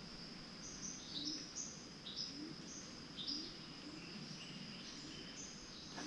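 Quiet rainforest ambience: a steady, thin, high insect drone with short bird chirps stepping up and down in pitch, a few a second.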